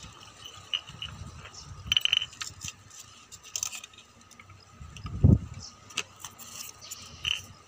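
Handling noise as a cable and plug and a cloth cover are pulled out from beside a benjo in its case: scattered clicks, small rattles and rustling, with a low thump a little past five seconds in.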